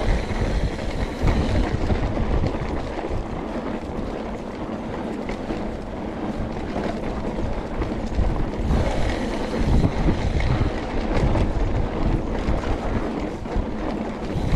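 Wind rushing over an action camera's microphone as a mountain bike rolls over bare sandstone. Underneath there is tyre noise on the rock and scattered small clicks and rattles from the bike.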